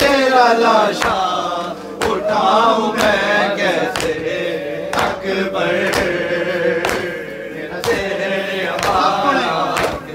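A group of men chanting a Shia mourning lament (noha) in unison, with hand slaps on the chest (matam) landing about once a second in time with the chant.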